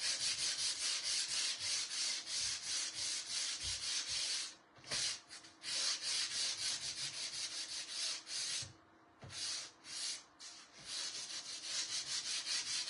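Hand sanding of dried chalk paint on a craft piece with sandpaper: quick back-and-forth scraping strokes, broken by two short pauses.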